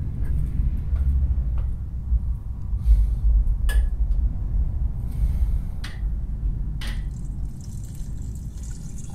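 Low, steady humming drone from a horror short film's soundtrack, the creepy background hum of its build-up, with a few sharp clicks scattered over it.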